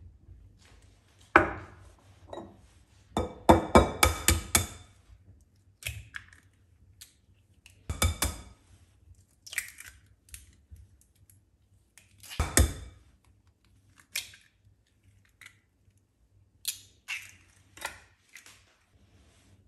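Eggs tapped and cracked against a glass mixing bowl, with sharp knocks and ringing glass clinks as the shells break and are set down in a small glass dish.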